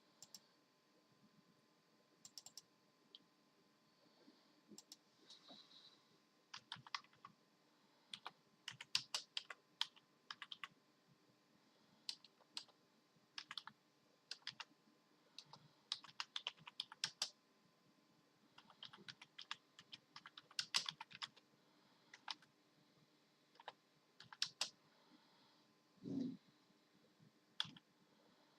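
Computer keyboard keys being pressed in irregular clusters of clicks with pauses between, as a pet taps out random text. A short dull thump comes about 26 seconds in.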